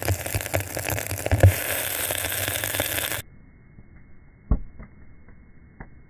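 Lumps of quicklime from burnt seashells being slaked with water: a loud hiss and sizzle with crackling as they throw off steam. About three seconds in the sound cuts off abruptly to a much quieter, muffled stretch with a few sharp pops, one louder than the rest.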